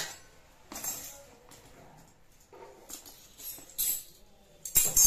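Miniature stainless-steel toy spoons and pots clinking and jingling against each other as they are handled and set down on a tiled floor. A few separate clinks come about a second in and around three and a half seconds, and the loudest jangle comes near the end.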